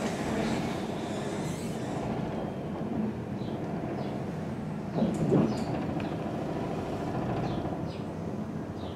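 Cliff railway funicular car running on its rails into the station, a steady rumble with a louder knock or clatter about five seconds in.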